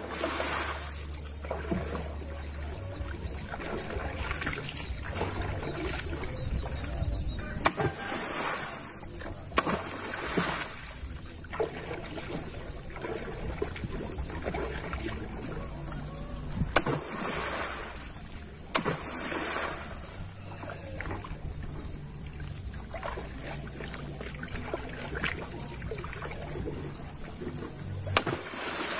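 A small canoe being paddled: the paddle splashes and sloshes through the water stroke after stroke, with a few sharp knocks of the paddle against the hull.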